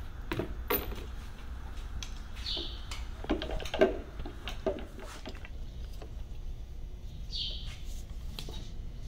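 Scattered light clicks and metal knocks as the valve cover is worked loose and lifted off a jet-ski engine's cylinder head, with a cluster of louder knocks about three to four seconds in. A few short high chirps are heard twice.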